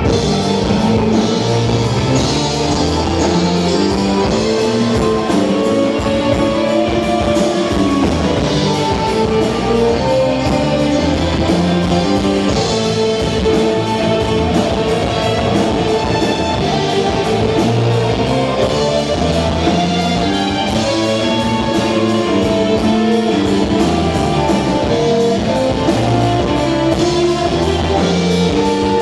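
Live rock band playing: electric guitar over a drum kit keeping a steady beat.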